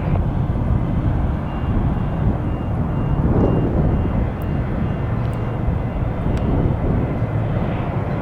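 Jet airliner engines running, a steady low rumble with a slight swell about three seconds in.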